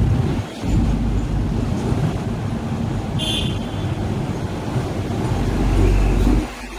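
Street traffic rumble as a sixth-generation Hong Kong double-decker tram approaches and passes close by, growing a little louder as it goes past. A brief high-pitched beep sounds about three seconds in.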